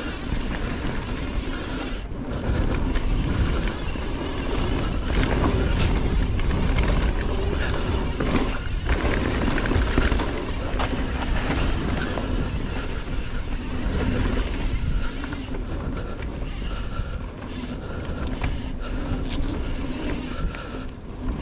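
Mountain bike riding fast down a dirt trail: wind rushing over the camera's microphone, tyres rolling over packed dirt, and the frame and parts rattling at each bump.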